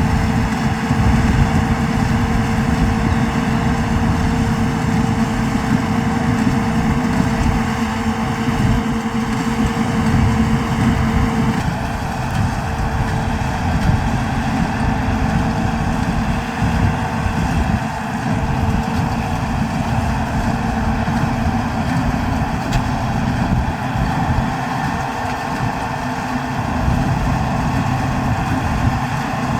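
New Holland TD110D tractor's diesel engine running steadily during baling, its tone changing about a third of the way through.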